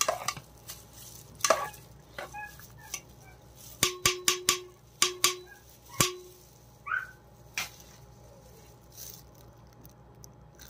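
A metal spoon stirring a watery mix of chopped tomatoes, onion, spices and oil in an aluminium pot, knocking against the pot's side and rim in a string of clinks, several of which ring on briefly, thickest about four seconds in. The clinks stop after about eight seconds.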